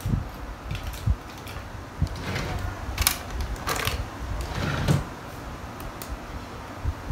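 Small handling sounds on a desk: scattered clicks, light knocks and short rustles of paper as papers and a pen are picked up and moved. The busiest stretch is in the middle.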